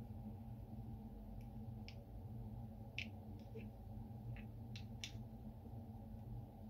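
Small sharp clicks from a diamond-shaped BMW plastic remote key as it is handled and its buttons pressed: about eight irregular clicks in the middle few seconds. A steady low hum runs underneath.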